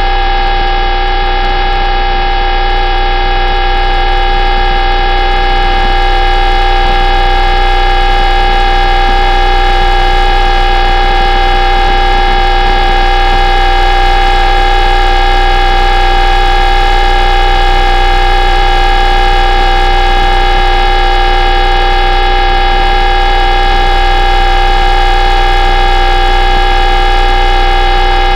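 UVB-76 "The Buzzer" shortwave station transmitting a steady humming drone instead of its usual buzz, heard through a radio receiver. It is one unbroken hum of several layered tones, with no pulses or breaks.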